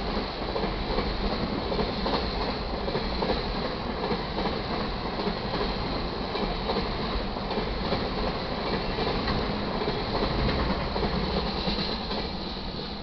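Autorack freight cars rolling past close by, steel wheels running on the rails with a steady rumble and clatter. The sound eases off near the end as the last car clears.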